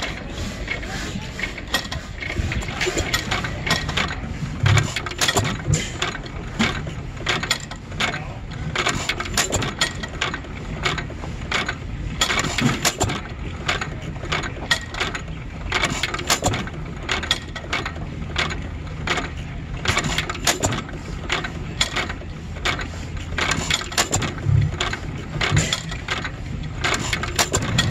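Antique stationary gas engines running very slowly, their valve gear and igniter mechanisms clicking and clattering steadily, with an occasional low thud over a low hum.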